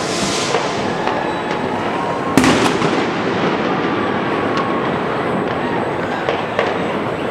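Fireworks going off across the city: a continuous distant rumble and crackle of bursts, with one sharp, loud bang about two and a half seconds in followed by a few smaller cracks.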